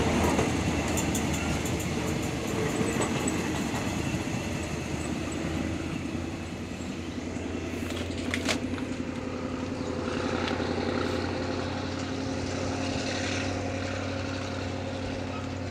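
Passenger train carriages rolling past on the adjacent track, wheels clattering over the rails, over the steady running of a diesel locomotive engine. There is a single sharp clank about eight seconds in.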